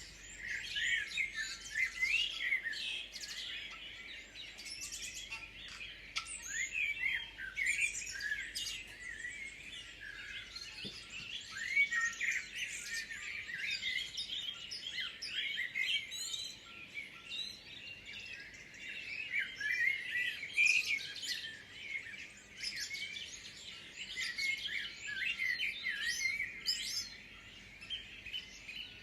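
A chorus of many small birds chirping and singing at once: a dense, unbroken tangle of short high chirps and trills, overlapping throughout.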